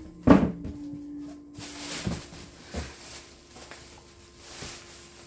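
A single thump about a third of a second in, then a plastic shopping bag rustling and crinkling as it is lifted out of a cardboard box.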